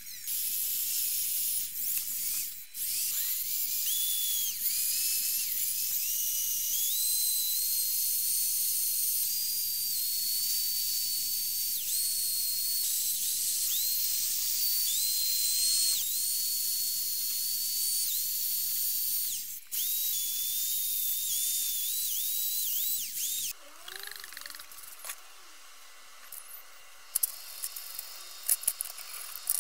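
High-speed power tool spinning a small wire brush against rusty cast-iron vice parts: a high-pitched motor whine whose pitch shifts up and down as the brush bears on the metal. About twenty-three seconds in it stops, and small steel vice parts clink in a metal tray as they are scrubbed.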